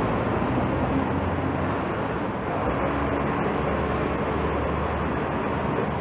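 Steady city street traffic noise. A single-deck bus moves off down the road and a taxi passes close by at the start.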